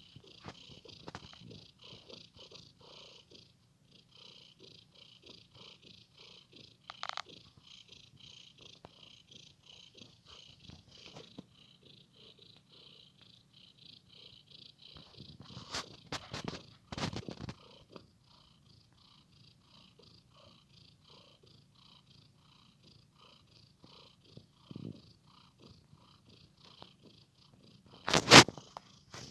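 Domestic cat purring steadily, pulsing in an even in-and-out rhythm. A few louder sudden noises break in, the loudest near the end.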